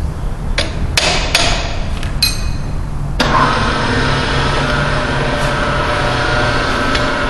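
A few sharp metal clanks from the vise and its handle being worked on the milling table, then about three seconds in the Ex-Cell-O Model 602 vertical mill's spindle motor switches on and runs steadily.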